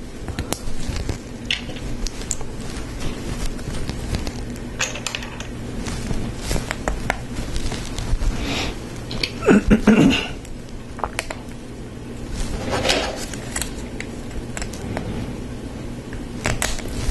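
Plastic Lego Technic pieces clicking and clattering as parts are handled and pins and axles pushed together, in scattered clicks with a busier run about ten seconds in. A steady low hum sits underneath.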